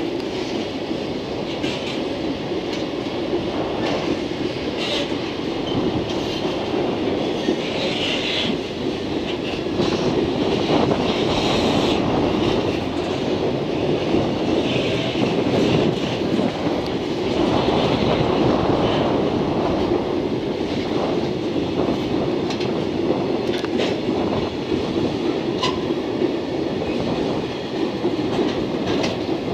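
Loaded container flatcars of a freight train rolling steadily past, their wheels clicking over rail joints and points. The wheels give brief higher screeches a few times.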